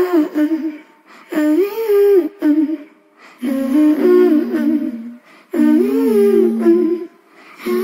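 A sped-up pop song's breakdown: four short vocal phrases with brief gaps between them, hummed or sung in layered harmony, with the beat and bass dropped out.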